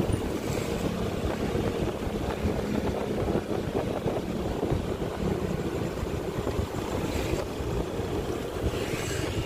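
Motorcycle engine running at a steady cruise, with wind buffeting the microphone.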